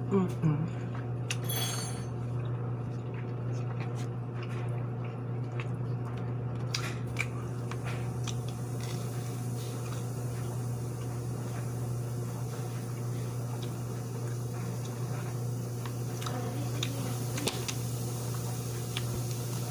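A steady low hum with a few scattered clinks and knocks of dishes and utensils being handled.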